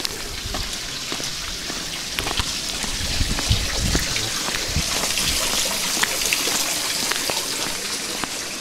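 Water dripping and splattering onto wet stone paving: a dense patter of drops over a steady hiss that grows louder through the middle, with a few low thuds about halfway.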